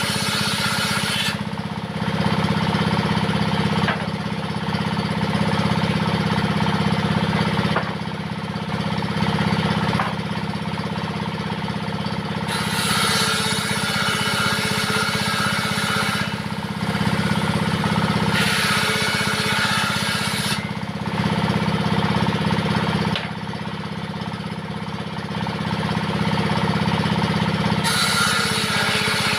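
Diesel engine running steadily, driving a homemade table saw that is ripping wood. A higher, brighter saw noise rises over the engine in stretches of a few seconds, several times.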